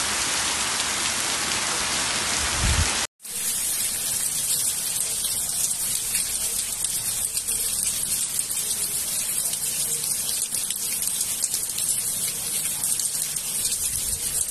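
Heavy rain falling steadily, a dense hiss of drops hitting the ground. About three seconds in the sound drops out for an instant, then resumes as heavy rain pattering on a cobblestone street.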